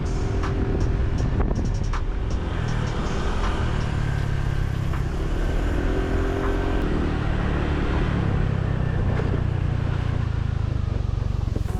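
Motor vehicle engine running steadily with road noise, a few short clicks in the first couple of seconds.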